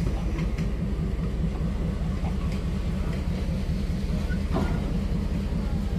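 Short excursion train rolling slowly past, a red caboose and an open-sided wooden coach on the rails: a steady low rumble of the train's running gear and motive power, with a few light clicks and a brief squeal about four and a half seconds in.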